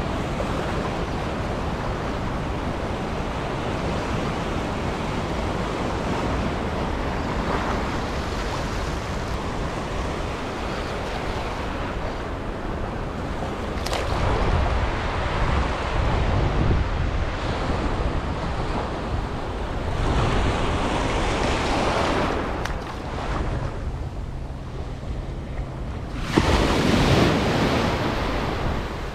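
Ocean surf washing and breaking at the water's edge, swelling louder now and then, with wind noise on the microphone.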